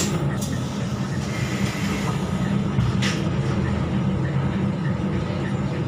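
Volvo B12BLE bus's 12-litre six-cylinder diesel engine running with a steady low drone, heard from inside the cabin, with a couple of sharp clicks or rattles near the start and about three seconds in.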